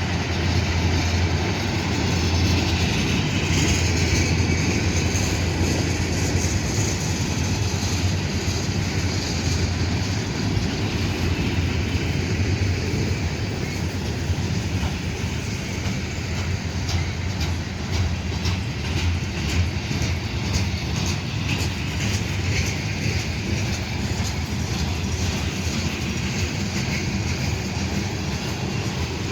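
Freight train rolling past: a steady rumble of wheels on rail, with frequent sharp clicks through the second half.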